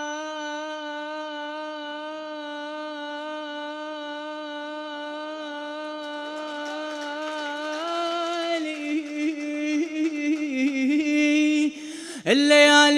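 A man's voice holds one long chanted note for about eight seconds, then wavers through ornamented turns, drops off briefly, and starts a new phrase near the end. This is the drawn-out melodic chanting of Iraqi popular poetry.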